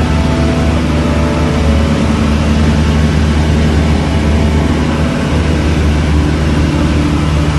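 Steady drone of a Cessna 172's piston engine and propeller in flight, heard inside the cabin: a deep, even hum with a wide rushing noise over it.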